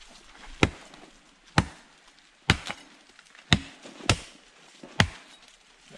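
Six sharp chopping strikes about a second apart, a tool cutting into roots and earth to open up an agouti's burrow.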